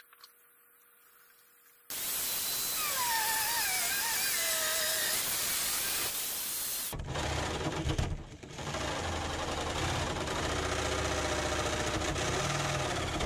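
Corded rotary tool with a cutoff wheel grinding through sheet steel, starting about two seconds in, with a whine that drops in pitch as the wheel bites. About halfway through, the sound changes to a heavier, lower-pitched cutting noise that runs on until just before the end.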